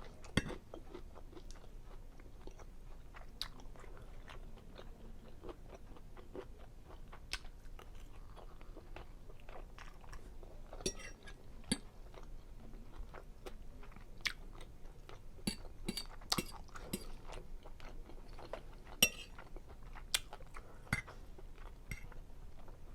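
A person chewing seafood linguine Alfredo close to the microphone: irregular wet mouth clicks and smacks, with a few sharper clicks in the second half.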